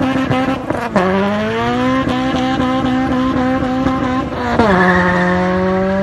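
Car engine pulling hard under acceleration, its pitch climbing steadily and dropping sharply with gear changes about a second in and again at about four and a half seconds.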